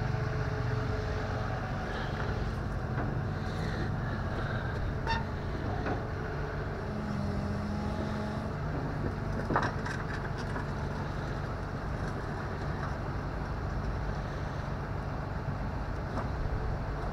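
Tow truck engine idling steadily, with a few faint metallic clicks.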